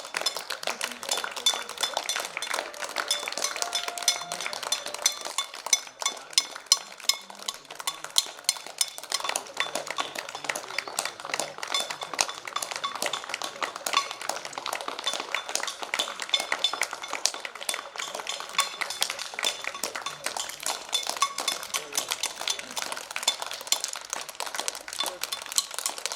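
Neighbours clapping and banging pots and pans: a dense, steady patter of claps with ringing metallic clangs throughout, and voices mixed in.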